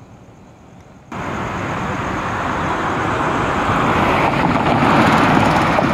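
Road traffic: a vehicle's engine and tyre noise, starting abruptly about a second in and growing louder as it passes close.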